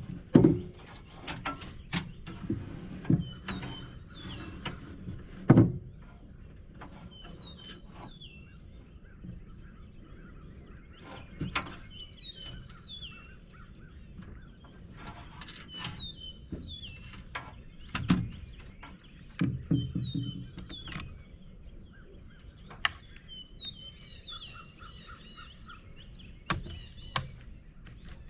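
Small birds chirping again and again, with scattered sharp knocks and thuds of lumber being handled and set on the garage roof trusses; the loudest knocks come right at the start, at about five seconds, and around eighteen to twenty seconds in.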